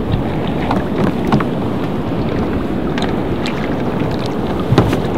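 Wind buffeting the microphone on a kayak out on open water, a steady rushing noise, with a few sharp clicks and knocks scattered through it; the loudest knock comes near the end.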